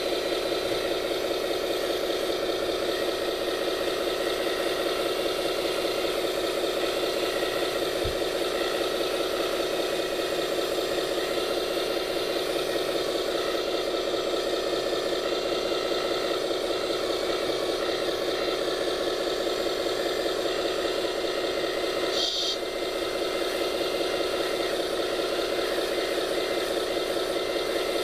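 A scale RC construction machine running with a steady, even mechanical hum and rattle. It briefly dips about 22 seconds in, with a short high-pitched blip.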